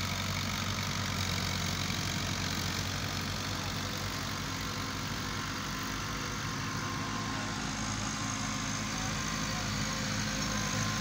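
Farm tractor's diesel engine running steadily while it pulls a rotary tiller through dry soil.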